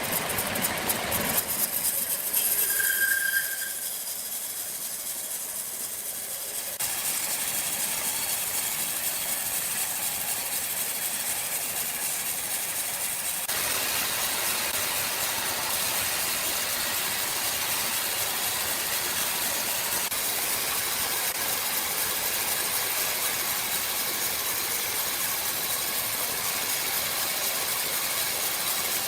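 Sawmill machinery running with a steady, hiss-like mechanical noise. Rapid clicking opens it, and the sound changes abruptly a few times.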